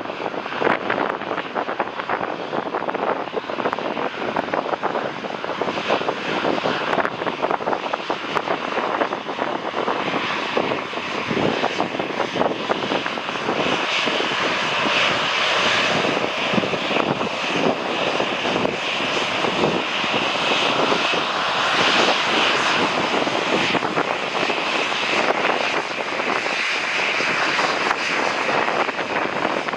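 Jet airliner on landing approach passing close by, its engine noise building to a peak about halfway through and easing slightly near the end.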